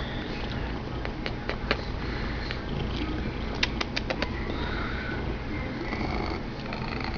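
Himalayan cat purring loudly and steadily. Two short runs of sharp clicks come through it, about a second in and near the middle.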